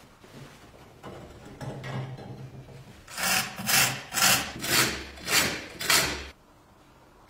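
The rusty hinged blade arm of an old bread cutter being swung back and forth, scraping on each stroke. Softer rubbing comes first, then six loud scrapes at about two a second, which stop suddenly.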